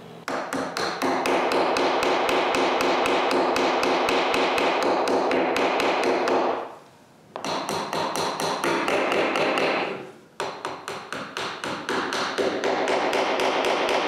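Small hammer tapping glued wooden dominoes into the corner mortises of a small wooden box, in rapid, even taps that break off twice. Background music plays underneath.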